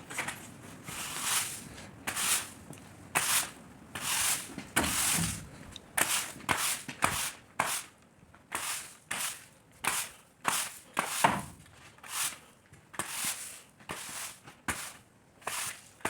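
A hand tool scraping and swishing through bedding on a pen floor, in quick repeated strokes about one to two a second.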